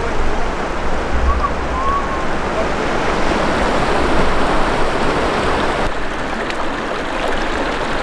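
Snow-fed mountain river rushing over a shallow, rocky bed: a steady, loud rush of water.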